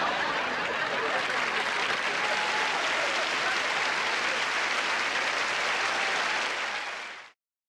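Sitcom studio audience applauding steadily, fading out and cutting off near the end.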